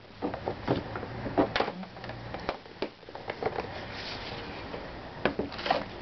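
Plastic side cover of a Honda Elite 110 scooter being slid forward and pushed down off its mounts: a series of irregular plastic knocks and scraping.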